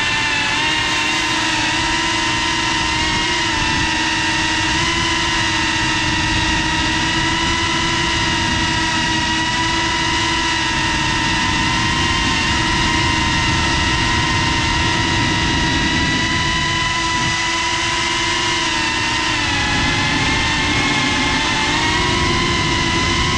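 GEPRC Cinelog 35 FPV quadcopter's brushless motors and ducted propellers whining steadily in flight, heard from the GoPro mounted on the drone. The pitch dips and rises a little with throttle.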